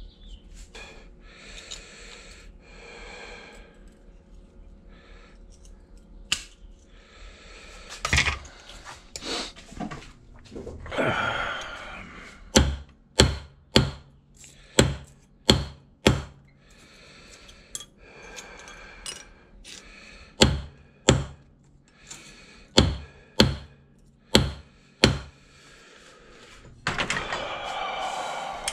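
Hammer strikes on metal at a bench vise, in two runs of about six sharp blows, flattening a small strip cut from aluminium sign sheet. Scratchy scraping comes between the runs, and a louder steady noise starts near the end.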